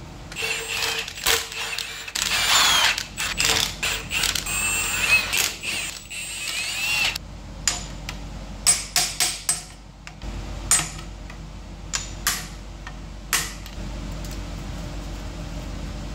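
Hand tools working on the sump of a Peugeot XK4 engine: several seconds of dense ratcheting and metal scraping with squeaks, then a string of separate metal clicks and clinks.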